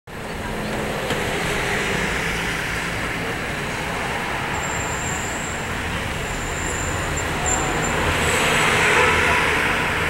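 Steady street traffic noise from cars and buses passing at a busy intersection, growing a little louder near the end. A faint high thin whine comes and goes in the middle.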